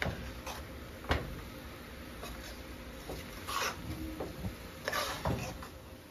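A spoon stirring and scooping thick curried chickpeas in a pot, with a few sharp taps against the pot near the start, the loudest about a second in, then short scraping sounds.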